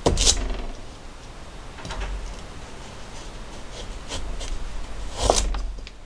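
Kitchen knife slicing carrot on a plastic cutting board: a handful of separate knocks as the blade comes down on the board, the loudest just after the start and again about five seconds in.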